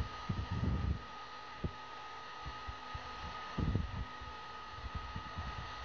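Electric heat gun running with a steady rush of air and a thin high whine, heating a lead jig for powder coating. Irregular low thumps come through several times.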